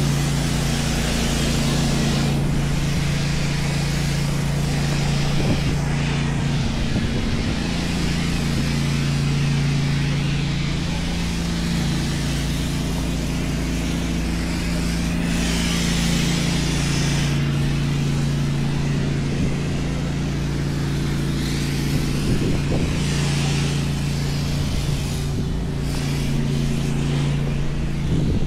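Engine running steadily with a low droning hum that dips slightly in pitch partway through, under a constant rushing hiss.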